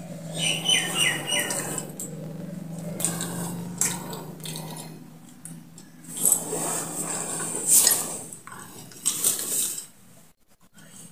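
Wet mouth and throat noises of someone working up saliva to spit into a glass, with metal and glass bangles jingling in short bursts. A steady low hum sits underneath for the first half.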